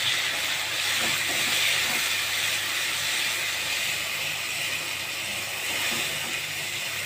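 Sliced onions and freshly added tomato pieces sizzling steadily in hot oil in a kadai while a spatula stirs them.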